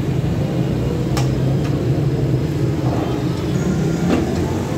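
Steady low mechanical rumble, with a couple of faint brief clicks.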